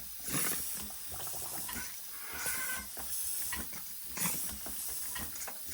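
Miniature steam locomotive's cylinders and drain cocks hissing in uneven puffs, about one a second, as the valve gear is run and tested.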